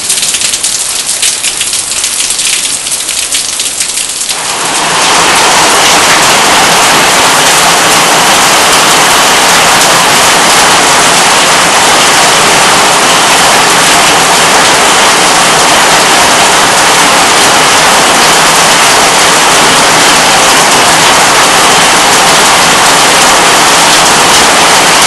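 Heavy rain in a thunderstorm: a crackling patter of rain for the first few seconds, then about five seconds in it abruptly becomes a loud, steady downpour hiss.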